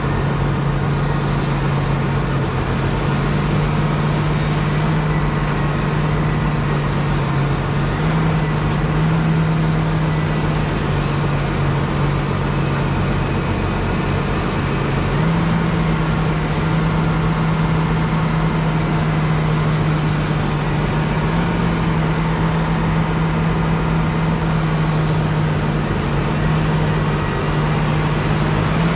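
Large diesel farm tractor engines running hard under load while pulling a tractor stuck in mud. The engine note holds steady and steps up in pitch several times.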